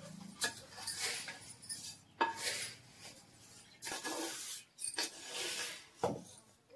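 A series of scraping or rubbing strokes, roughly one a second, in uneven bursts, with a light metallic clink or two. The sound is typical of kitchen vessels being worked by hand.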